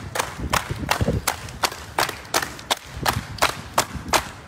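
A group of people clapping their hands together in a steady rhythm, about three claps a second.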